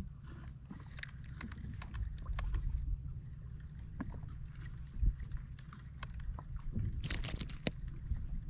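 Irregular clicks, knocks and rustles of fishing line and catch being handled aboard a small fishing boat, over a steady low rumble, with a short rough scraping burst about seven seconds in.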